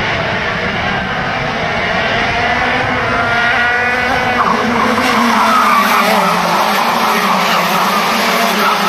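A pack of racing go-karts at speed, many small engines running together at high revs, some rising in pitch around halfway through as they come through the bend and growing a little louder after that.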